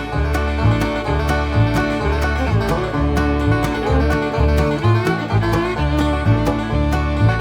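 Upbeat bluegrass-style background music with banjo and guitar over a steady, regular bass beat.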